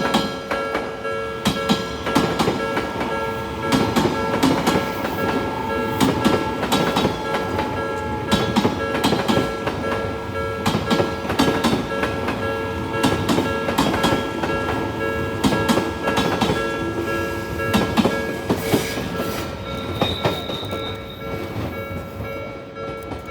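Odakyu 2000 series electric commuter train passing over a level crossing, its wheels clacking rapidly over the rail joints. The crossing's warning bell keeps ringing steadily under it, and the train sound fades near the end.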